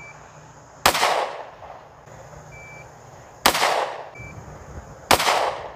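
Three single pistol shots from a SIG Sauer P320 X-Compact, the first about a second in, then gaps of about two and a half seconds and a second and a half. Each shot rings off briefly after the crack.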